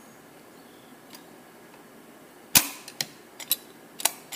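A handful of sharp metallic clicks and taps from handling the small linkage parts of a Quadrajet carburetor on the bench. They start about halfway through, and the first is the loudest.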